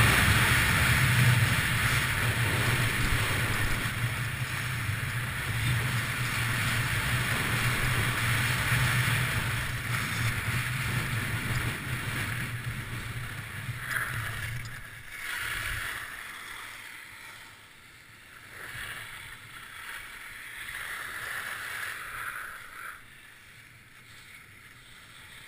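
Wind rushing over the camera's microphone while skiing fast downhill, mixed with the hiss and scrape of skis on packed snow. About halfway through the rush and low rumble die away as the skier slows, leaving shorter swishes of ski turns on snow.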